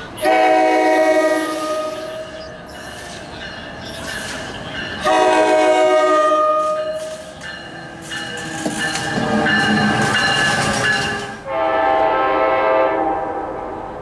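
Locomotive air horn sounding a chord in four long blasts, the third less sharply started, over the rumble of a passing train.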